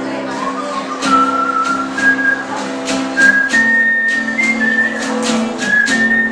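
Acoustic guitar strummed in a steady rhythm while a whistled melody carries the tune in long held notes with small slides between them: the instrumental intro before the singing begins.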